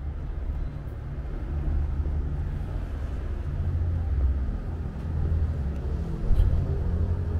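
Low, steady rumble of motor traffic, with a short louder knock about six seconds in.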